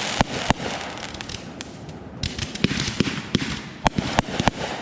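Fireworks going off in rapid succession: sharp bangs at irregular intervals, several a second, over a constant crackling hiss.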